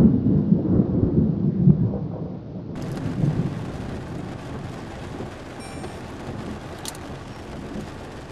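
Thunder from a lightning strike rumbling low and fading over the first two or three seconds, followed by steady rain.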